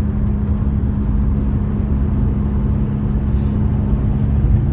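Vehicle driving, heard from inside the cab: a steady engine drone over low road rumble, with a brief hiss about three seconds in.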